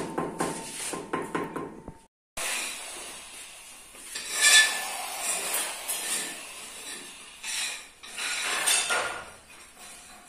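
Quick taps of a trowel on a ceramic wall tile being set in place. Then, after a short break, a steel trowel scraping and spreading cement mortar across the back of a tile in a few strokes.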